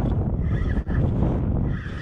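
Wind buffeting the microphone, with two short wavering whines from a spinning reel under load as a fish is fought on a bent rod, one about half a second in and one near the end.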